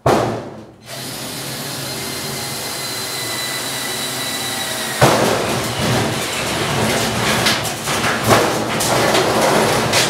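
Cordless drill with a 3/4-inch step bit cutting holes in sheet-metal ductwork. After a short burst at the start, the drill runs with a steady whine. About halfway through it gets louder and rougher, with sharp scraping spikes as the bit bites into the metal.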